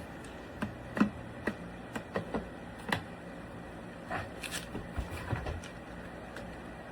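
Irregular sharp clicks and knocks, about a dozen over five seconds, over a steady low hum.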